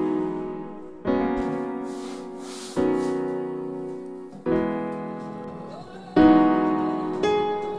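Background music: slow piano chords, a new one struck about every 1.7 seconds, each fading away before the next.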